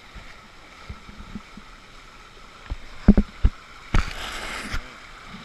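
Water on a river, with a few dull knocks about three seconds in, followed by a short, sudden rush of splashing.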